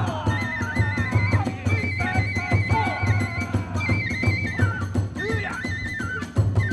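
Kagura hayashi ensemble playing: a bamboo flute holds a high melody that moves in steps, over a fast, steady beat on the big drum and the clash of hand cymbals.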